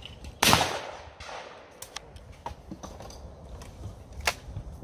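A single shotgun shot about half a second in: one loud report with a trailing echo. A few faint clicks follow, and a sharp click near the end.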